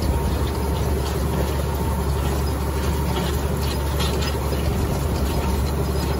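Farm tractor engine running steadily while towing a double wheel rake through hay: an even low drone.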